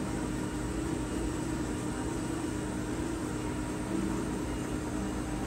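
Steady mechanical hum over an even hiss.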